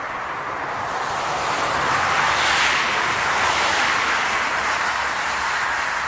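A vehicle passing at speed on a freeway, its tyre and road noise swelling to a peak about two and a half seconds in and then slowly fading.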